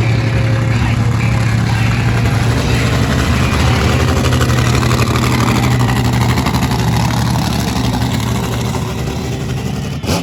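A steady, low engine hum over a busy outdoor din, with a short knock near the end.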